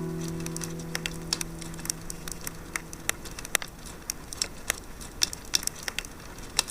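Wood campfire crackling with irregular sharp pops, while the last held acoustic guitar chord dies away over the first few seconds.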